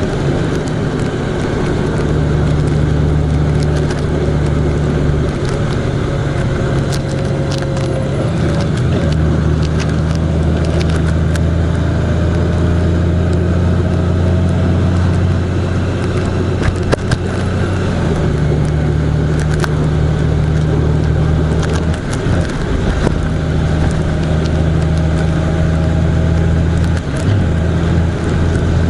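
A road vehicle's engine running steadily under way, over a haze of road noise. Its low hum steps up and down a few times, with a few faint clicks.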